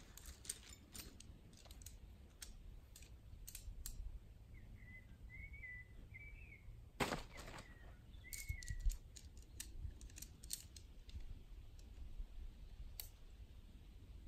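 Irregular sharp clicks and light taps, with one louder, longer noise about seven seconds in. A bird chirps in short phrases around the middle.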